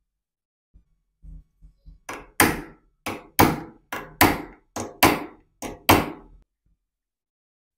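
A hammer strikes a steel punch held on a nail head, driving the nail below the surface of a wooden board. A few light taps come first, then about ten sharp strikes, roughly two a second, each ringing briefly.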